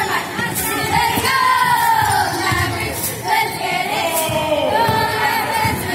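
A squad of young cheerleaders chanting a cheer in unison, their voices drawn out into long, sliding shouted words.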